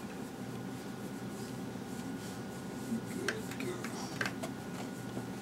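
A dog moaning low while its belly is rubbed, which sets off the scratch reflex, with a few light clicks partway through.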